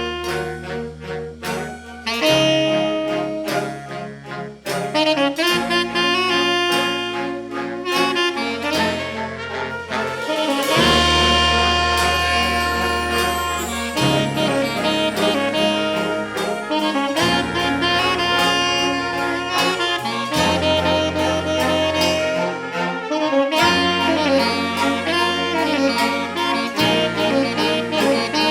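Fanfare brass band playing an upbeat tune, with saxophones and brass carrying the melody over a low brass bass line that changes note every second or two, and drums keeping a steady beat.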